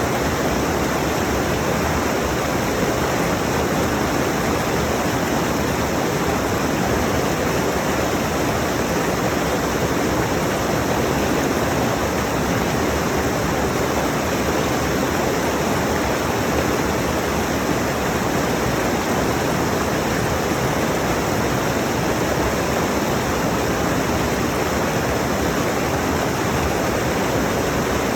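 A mountain stream rushing over rocks: a steady, unbroken wash of water noise.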